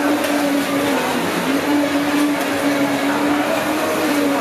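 A steady motor-like hum holding one pitch, over the background noise of a busy market, with a brief dip about a second in.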